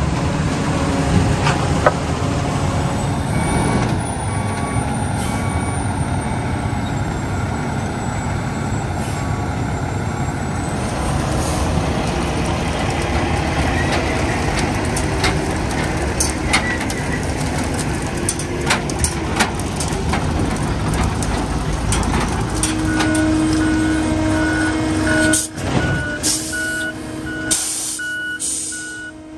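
Diesel engines of concrete mixer trucks running. In the last several seconds a reversing alarm beeps steadily over the engine noise.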